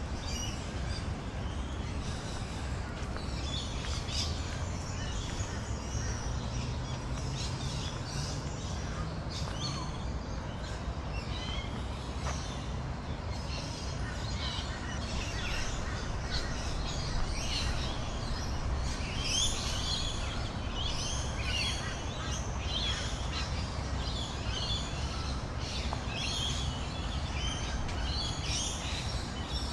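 Birds chirping and calling over a steady low hum of city background, the chirps growing busier about two-thirds of the way through.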